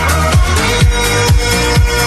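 Electronic dance music with a steady kick drum about twice a second under sustained synth tones.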